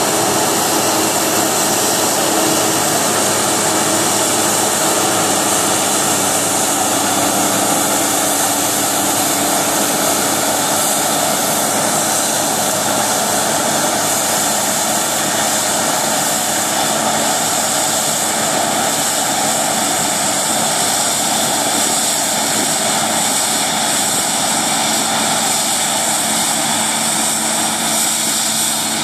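Claas Lexion combine harvester running steadily under load while harvesting and unloading grain through its auger, with the tractor pulling the grain trailer running alongside. A continuous loud drone.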